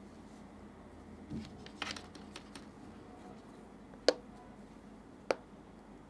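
Hands handling a phone and its packaging or accessories: a soft bump, then a brief patch of rustling and small clicks. Two sharp taps of hard objects follow, a little over a second apart.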